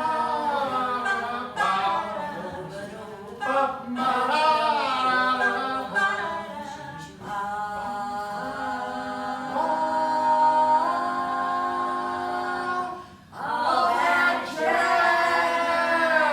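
A small group of voices singing together in harmony without instruments, holding a long chord in the middle and breaking off briefly near the end before coming back in.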